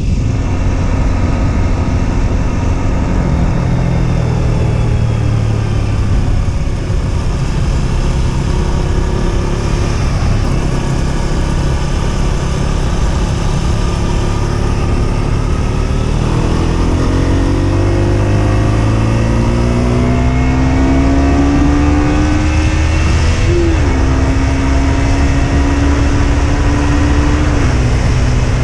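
Husqvarna Svartpilen 125's single-cylinder four-stroke engine under way on the road, heard with heavy wind rumble. The engine note holds steady, then climbs in pitch for several seconds past the middle as the bike accelerates, and steps down twice near the end.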